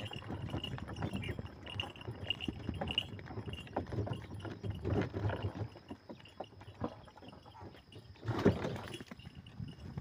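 Ox-drawn wooden cart rolling along a dirt track, its wooden frame and yoke rattling and knocking with the ox's steps. A louder burst of noise comes about eight and a half seconds in.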